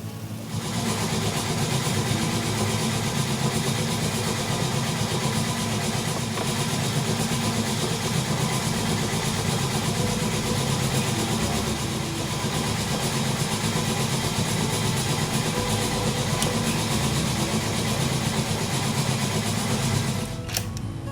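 CJ0618 mini lathe running steadily with a loud hum and hiss. It starts abruptly about half a second in and stops near the end.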